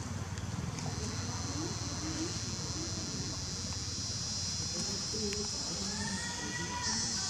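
A steady high insect buzz that comes in about a second in and grows louder near the end, over a faint murmur of voices.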